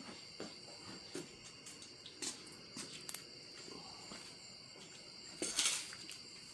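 Crickets chirping steadily, with scattered light knocks and clicks of handling and a louder rustle about five and a half seconds in.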